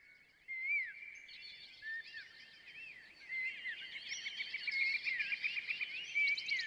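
Birds singing: many short whistled and chirped calls overlapping, the chorus growing denser and louder about three seconds in.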